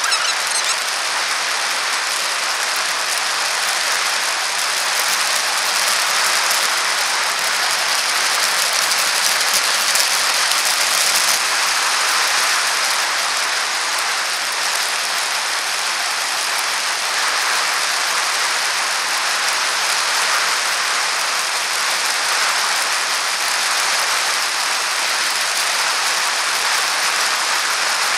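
Steady riding noise of a bicycle rolling along a smooth paved path, picked up by a camera mounted on the bike: an even hiss from the tyres and the bike's vibration.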